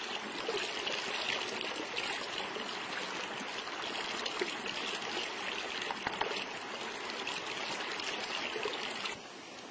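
Shallow stream running over rocks, a steady rushing hiss, with a few faint knocks from a wooden pestle in a mortar. The water sound drops away suddenly near the end.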